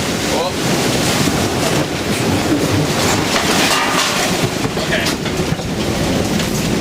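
Storm-force wind and heavy seas around a sailboat at sea: a loud, steady rushing noise.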